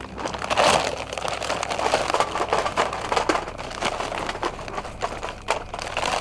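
Charcoal briquettes pouring from a paper bag into a burning metal fire pit: a dense rattle of tumbling lumps with the bag crinkling, loudest about half a second in.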